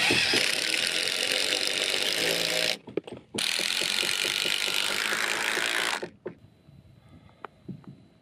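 Ryobi cordless impact driver hammering as it drives wood screws through a steel angle bracket into a timber beam. Two long runs with a brief pause and a few clicks between them, then it stops about six seconds in.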